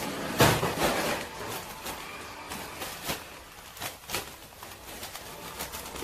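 Wood-shaving bedding poured from a plastic bag into a plastic tray: a loud rustle and crinkle of bag and shavings about half a second in, then scattered crackles and taps as the shavings are tipped and spread by hand.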